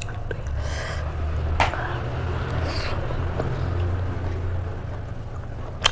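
Quiet eating sounds: one sharp crunch or click about a second and a half in and another near the end, over a low steady rumble.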